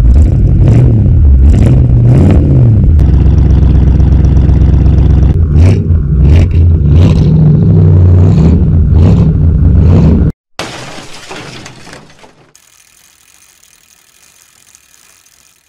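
A classic car engine revving loud, its pitch climbing and falling with the throttle, cutting off abruptly about ten seconds in. A two-second noisy burst follows, then a faint ringing that fades away.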